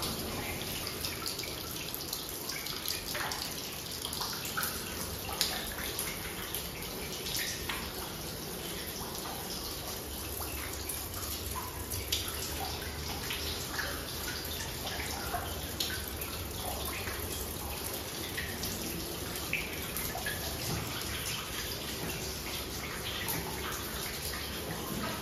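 Water trickling and dripping inside a rock mine tunnel: a steady wash of running water with many irregular, sharp drips falling into it.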